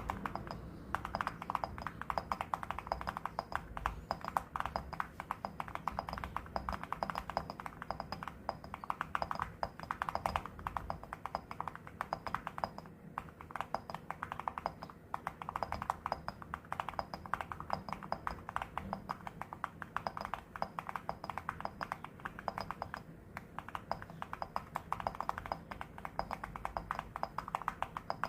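Fast, continuous typing on a mechanical keyboard fitted with ceramic keycaps: a dense run of sharp keystroke clicks with only brief pauses.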